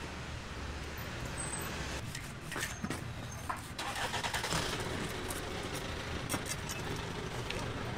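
Steady low hum of a motor vehicle engine running nearby. About two to four seconds in, a few short scraping strokes of a large knife cut into an ocean sunfish's thick skin.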